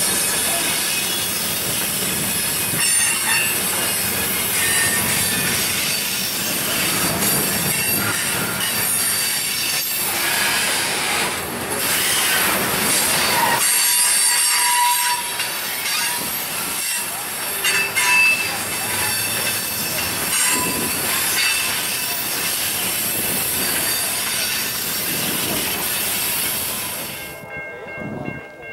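Freight cars rolling past at close range, steel wheels squealing against the rails with clicking over the rail joints. The sound cuts off sharply near the end.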